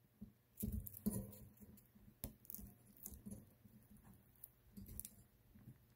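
Faint scattered clicks, taps and rustles of hands handling an XT90 connector and its wires while sliding the plastic housing into place.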